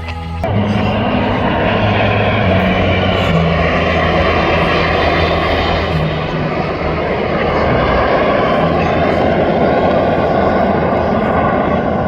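Jet noise from a formation of BAE Hawk trainer jets and their turbofan engines passing over, a loud steady rush that starts abruptly about half a second in.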